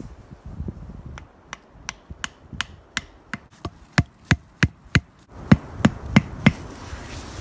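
A hand tool striking repeatedly in a steady rhythm, about three blows a second, like chopping or hammering. The blows grow louder partway through, pause briefly, then resume with a few heavier strikes.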